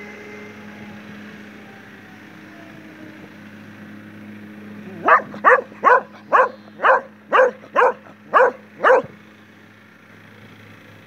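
A dog barking nine times in a quick series, about two barks a second, starting about five seconds in, over a steady low hum.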